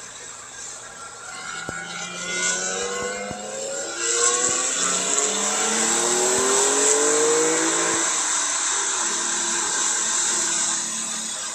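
Porsche 911 Carrera 4S twin-turbo flat-six accelerating hard in second gear, its note rising steadily for several seconds, then dropping on the upshift to third about two-thirds of the way through. Over it a steady hiss of water spray from tyres running on a flooded track, heard from inside the cabin.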